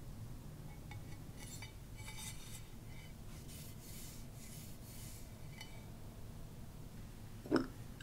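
White ceramic divided serving plates scraping and clinking lightly against each other as they are handled and lifted off a stack, then one low knock near the end as a plate is set down on the table.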